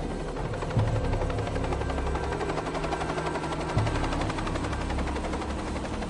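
Small helicopter flying low, its rotor beating in rapid, even pulses over the engine noise. Two low thuds cut through, about a second in and again near four seconds, with background music.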